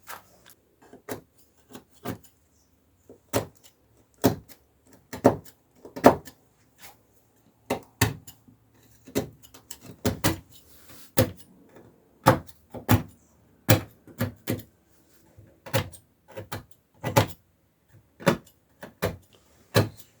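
A long series of sharp knocks and clicks at irregular spacing, one or two a second, with near-quiet between them.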